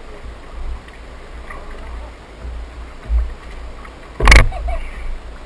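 Uneven low rumble of wind buffeting the microphone of a bow-mounted camera on a bass boat. A dull thump about three seconds in, and a single sharp knock just after four seconds, the loudest sound.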